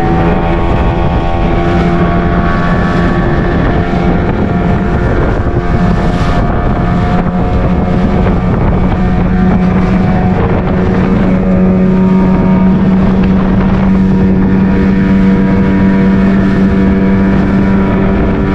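Outboard motor running at a steady speed, driving a fiberglass fishing boat along, with a steady drone that grows a little stronger about seven seconds in. Wind rushes over the microphone underneath.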